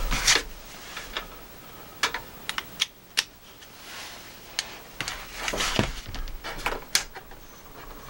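Scattered, irregular clicks and short rustles of a USB cable and its plug being handled on a tabletop and plugged in.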